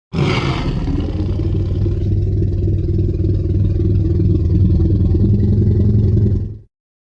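Tyrannosaurus rex roar sound effect: a deep, low rumbling growl that starts with a harsh burst and then holds steady for about six and a half seconds before cutting off.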